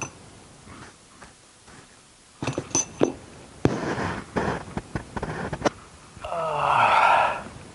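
Clicks and knocks of plastic parts being handled and fitted on an electric garden shredder, a run of them in the middle, then a louder drawn-out rasping sound lasting about a second near the end.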